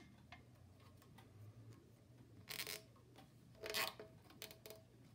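Hands working a rubber drive belt onto a small air compressor's pulley: a few light clicks and two brief scraping rubs, the second the loudest, then smaller ones.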